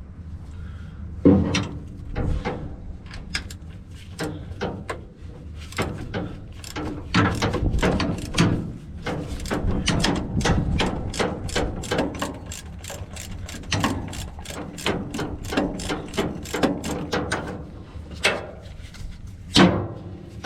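Ratchet wrench being worked on a fastener: a long run of sharp clicks at about four a second, with a louder knock about a second in and another near the end.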